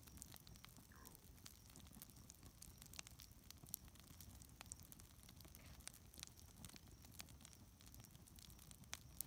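Wood campfire crackling faintly, with scattered irregular sharp pops over a soft low rush of the flames.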